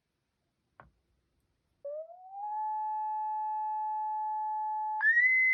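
Pure sine tone from a smartphone frequency-generator app: after a faint click, the tone starts, glides up in pitch, holds steady, then jumps abruptly to a much higher pitch near the end.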